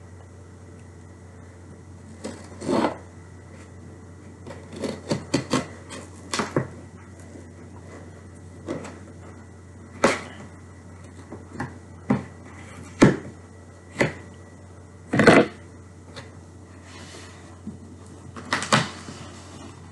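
Packaging being handled: a cardboard box and gift bags are moved and opened, giving irregular knocks, taps and rustles, about fifteen of them, the loudest about three-quarters of the way through, over a steady low hum.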